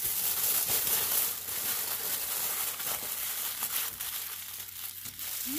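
Aluminium foil crinkling continuously as hands fold and crimp it into a closed packet.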